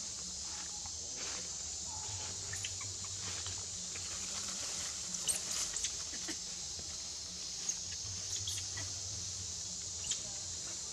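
Forest background with a steady high hiss, broken by faint scattered clicks, rustles and short squeaks from monkeys climbing and swinging through tree branches. Most of these come around the middle, with a few near the end.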